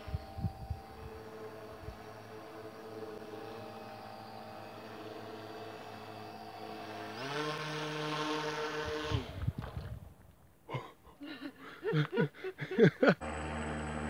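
The motors of a homemade remote-control bottle boat run with a steady whine. About seven seconds in, the whine grows louder and fuller as the boat speeds up. In the last few seconds it turns uneven, with dropouts and sharp clicks.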